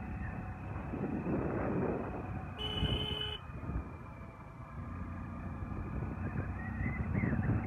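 A vehicle's engine and road noise heard from inside as it drives, with one short horn toot about three seconds in.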